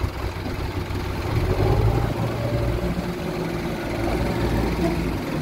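Diesel engine of heavy earth-moving machinery running steadily, a little louder about a second and a half in.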